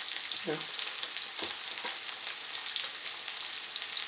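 Carrots, fennel, sweet pepper and celery sizzling in hot oil in a pan, a steady hiss. A couple of short knife knocks on a plastic cutting board in the middle.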